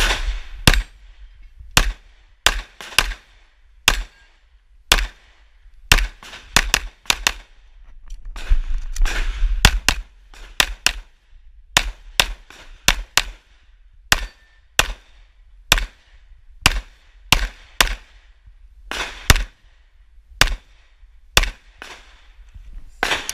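Pistol shots fired through a timed practical-shooting stage, mostly in quick pairs, with short pauses between strings while the shooter moves and reloads.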